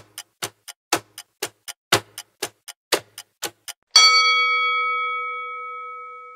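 Quiz countdown-timer sound effect: a clock ticking about four times a second, tick-tock, then about four seconds in a single bell chime marking the answer reveal, ringing on and fading slowly.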